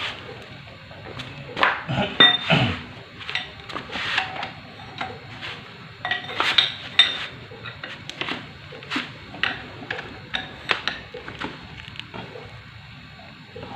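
Irregular metal clinks and knocks of steel tools and engine parts being handled during an engine overhaul.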